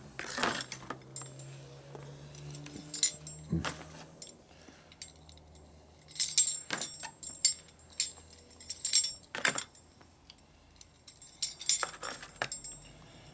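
Stainless steel spokes clinking and jangling against one another and the motorcycle star hub as they are threaded into the hub flange, in several short bursts of light metallic ticks over a low steady hum.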